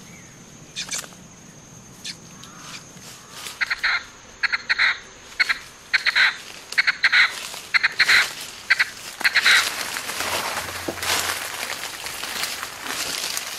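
A live partridge (francolin), held upside down, squawking in a rapid series of short, harsh calls, two or three a second, from about four seconds in until near ten seconds in: distress calls of a captured bird. Then leaves and undergrowth rustle.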